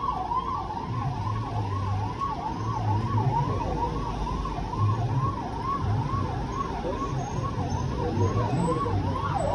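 Police siren on a motorcade's escort vehicles, wailing rapidly up and down about two and a half times a second, over the low rumble of vehicle engines.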